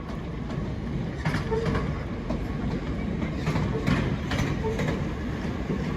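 Electric multiple-unit train rolling through the station, a steady rumble with its wheels knocking over rail joints in uneven pairs, and a few brief faint wheel squeals.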